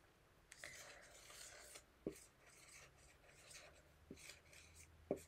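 Faint scratching of a marker pen writing a word on a small handheld whiteboard, with a few light taps of the pen or board.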